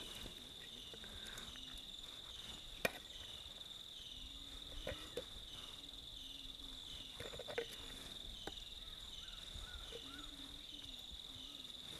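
Insects droning steadily at a high pitch, with a few faint taps and one sharp click about three seconds in.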